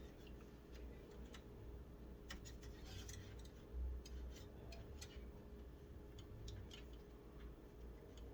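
Faint, scattered plastic clicks and ticks of PC power and fan cables being handled and pulled tight inside a computer case, the loudest a little under four seconds in, over a low steady hum.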